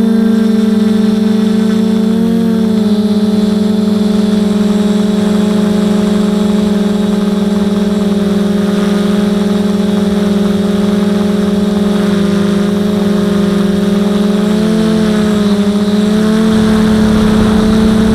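Quadcopter's electric motors and propellers running in flight: a steady buzzing hum whose pitch dips and wobbles briefly a few times. A rushing noise builds near the end.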